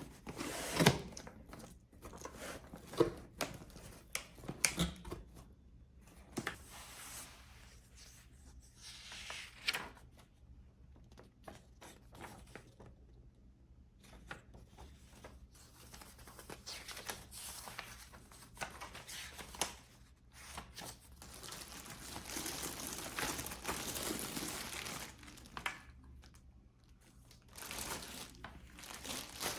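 Crinkling and tearing of something handled, like paper or plastic wrapping, in irregular stretches, with a few sharp knocks in the first five seconds.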